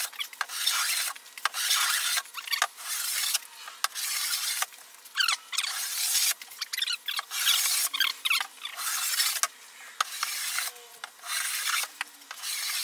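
Hand plane shaving the edge of a mahogany plank in quick back-and-forth strokes, more than a dozen of them, each a short rasping scrape, with a few brief squeaks near the middle. The plane is set to a shallow cut, smoothing the angles of a faceted edge toward a rounded bullnose.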